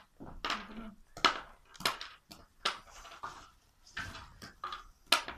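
Cardboard board-game coin tokens being punched out of their sheet and handled: a string of sharp snaps and rustles, about ten in five seconds.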